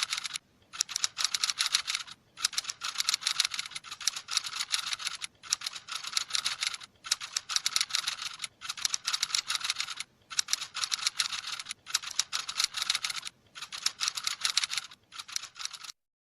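Rapid, dense clicking in runs of about a second and a half, each broken by a short pause at even spacing, like keyboard typing; it cuts off suddenly near the end.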